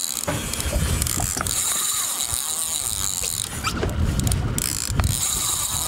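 Islander mooching reel's clicker ratcheting in a rapid steady buzz as the spool spins with a hooked chinook salmon on the line, cutting out a few times for moments near the middle.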